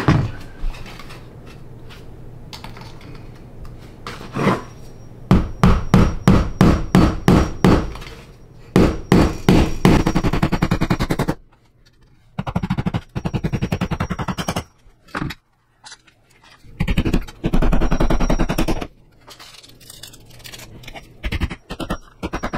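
Claw hammer nailing down a metal transition strip over laminate flooring: several runs of quick, sharp strikes with short pauses between them.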